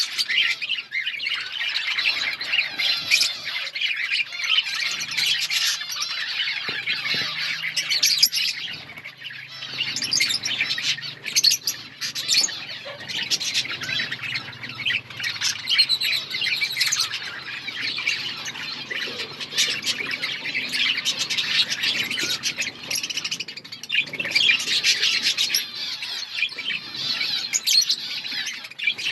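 A flock of budgerigars chirping and chattering together in a continuous din of overlapping squawks and warbles, with brief lulls now and then.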